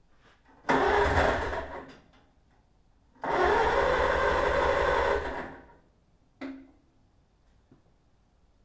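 Starter cranking the Farmall Cub's four-cylinder gasoline engine in two bursts, one of about a second and one of about two seconds, on fuel alone without starter fluid. The engine does not catch, and each burst winds down. A short sharp sound follows about a second after the second burst.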